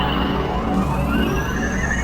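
Synthesized science-fiction sound effect: several high electronic tones slowly gliding upward over a dense low rumbling drone.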